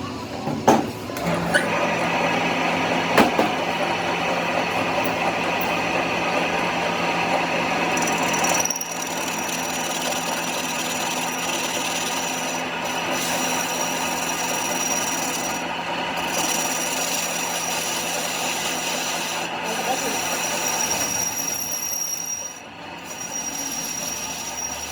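A workshop power tool working on metal, a steady running and scraping noise with a few sharp clicks near the start. About nine seconds in the sound changes and a thin high whine comes in, holding until near the end.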